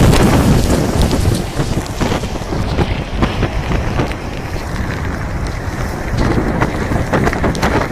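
Heavy wind buffeting the microphone over storm surf, as waves wash over a concrete breakwall and pour off its edge. It is loudest in the first second or so, then eases a little. The sea is running high enough to overtop the wall.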